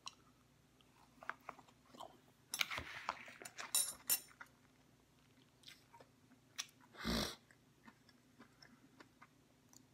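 A man quietly chewing a cold mouthful of shredded cabbage-and-beet sauerkraut: scattered soft crunches and wet mouth clicks, busiest a few seconds in. About seven seconds in comes one short, louder rush of noise.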